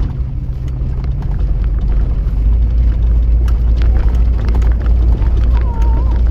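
Off-road vehicle driving on a rough dirt track, heard from inside the cab: a heavy low engine and road rumble that gets louder about two and a half seconds in, with scattered knocks and rattles from the bumps.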